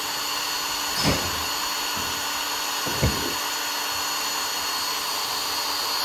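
Makita cordless drill running steadily at full speed, boring through a spoiler mounting foot into a car's metal boot lid, with two knocks about one and three seconds in. The motor cuts off suddenly right at the end.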